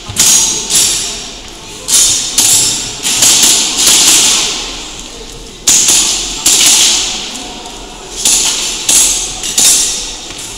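Tokyo Marui Hi-Capa 5.1 gas-blowback airsoft pistol firing a string of sharp shots, some in quick pairs, with short pauses between groups. Each crack echoes in the large hall.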